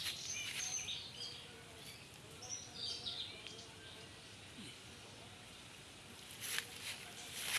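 Birds chirping: short high calls and whistles over the first few seconds, then fading. A couple of brief noisy bursts near the end.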